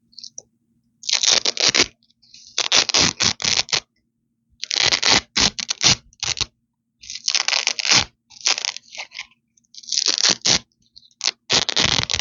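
Velcro hook-and-loop strips ripped apart close to the microphone: about seven separate crunchy rips, each a quick run of crackles, with short pauses between them.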